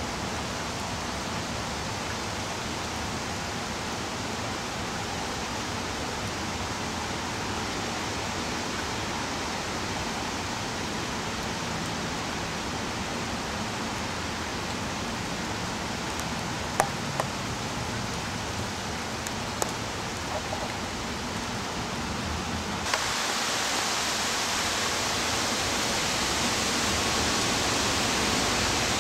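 Steady hiss of hurricane rain and wind. A few light clicks fall shortly before the end, and then the hiss turns abruptly brighter and a little louder.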